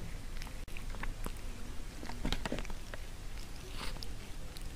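A cat right at the microphone: a run of small irregular clicks and rustles, busiest a little past the middle, over a steady low hum.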